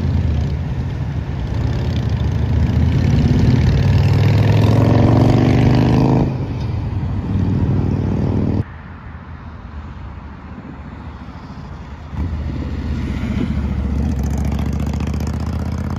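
Cruiser motorcycle engine accelerating past in traffic, its pitch rising for several seconds and then falling away. The sound drops abruptly about eight and a half seconds in and comes back loud about twelve seconds in as the motorcycle passes close again.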